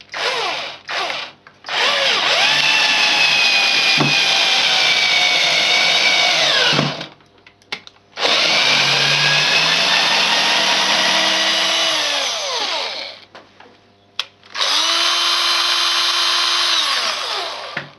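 Cordless drill-driver running off a homemade 18 V mains transformer power supply, driving a 70 mm wood screw: a few short trigger blips, then three long runs of motor whine several seconds each. The pitch sags slowly under load during the first run and falls away as each run stops.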